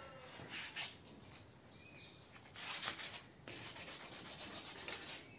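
Rubbing, scratching noise like sanding, coming and going in stretches, loudest about three seconds in.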